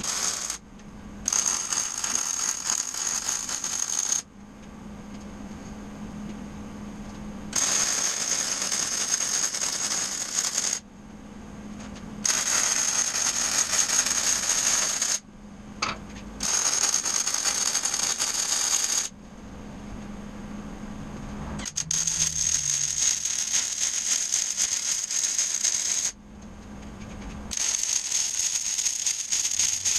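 MIG welder arc crackling as it welds unistrut steel channel, in about six runs of two to four seconds each, every one starting and stopping abruptly. A low steady hum fills the pauses between runs.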